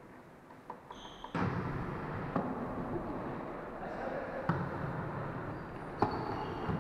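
Volleyball struck by hand three times, about two seconds apart, each hit a sharp smack echoing in a sports hall over steady hall noise, with a brief high squeak about a second in.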